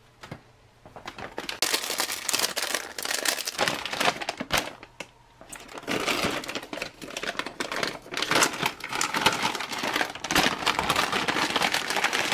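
Glossy olive plastic pouch of a Taiwanese Type B field ration being torn open and crinkled in the hands. It comes in two long spells of crackly crinkling with a brief lull and a single sharp click between them, about halfway through.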